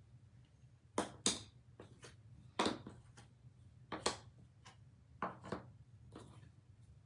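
Light handling noises: about eight short rustles and taps, scattered a second or so apart, of hands working twine and small painted cutouts on a cutting mat.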